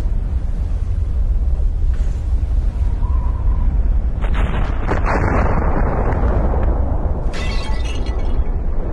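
Volcanic eruption rumbling: a deep, steady rumble with a louder burst of blast noise about four seconds in and a second, shorter burst near the end.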